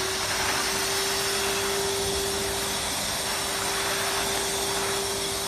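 Industrial vacuum cleaner of the 70–100 litre drum type running steadily: an even rush of air with a constant whine.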